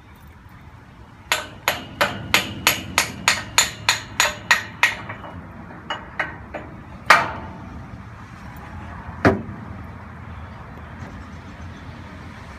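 Hammer striking the steel pins of a crane's swing-away jib: a quick run of about a dozen blows, roughly three a second, then a few scattered blows, one harder than the rest.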